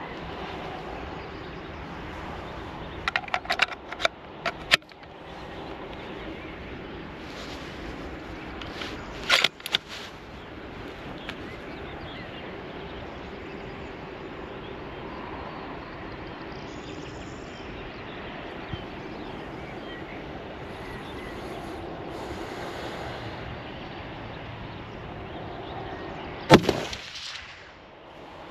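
A single loud shot from a .308 bolt-action Tikka T3X TAC A1 rifle with a muzzle brake, with an echoing tail, near the end, over a steady background hiss of rain. Earlier there are several short clusters of sharp clicks and knocks.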